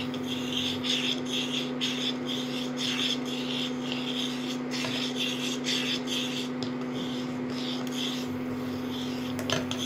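A spatula scraping round and round a stainless steel saucepan of freshly curdled milk (chhena in whey), about two strokes a second. Under it runs a steady hum from the electric cooktop heating the pan.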